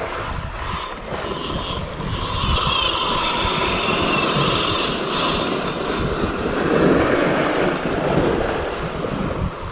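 Wind buffeting the microphone, with small waves washing against the shore rocks.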